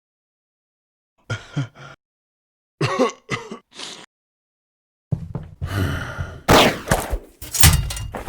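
Short voice sound effects, gasps and groans in four quick bursts, then about three seconds of busier, noisy sound effects with a quick falling sweep in the middle.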